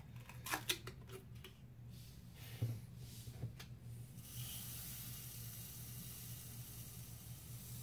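Clicks and small knocks of a powder jar being handled, then from about four seconds in a steady hiss of Hodgdon H4895 extruded rifle powder pouring into the clear plastic hopper of an RCBS ChargeMaster powder dispenser.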